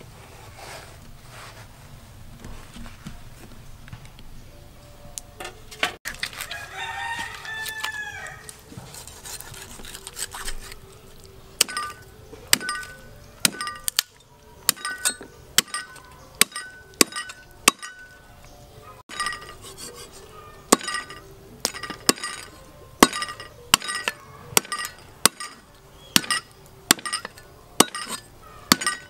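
A rooster crows once early on. From about twelve seconds in comes a steady run of sharp chops, about one to two a second, each with a short ring: a steel cleaver chopping pork ribs through the bone on a wooden block.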